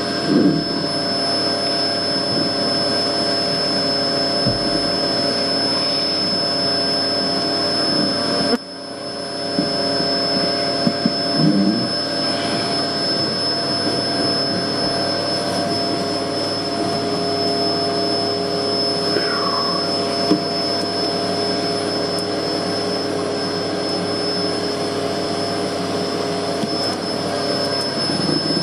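Vacuum running steadily with a high motor whine as it sucks bees out of a wall cavity. The suction sound drops suddenly for a moment about a third of the way in, then picks back up.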